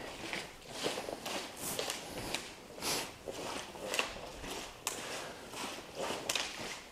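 Rustling and scuffing of a person doing repeated sit-ups on judo tatami mats in a cotton judo uniform, a soft swish about once or twice a second at an uneven pace.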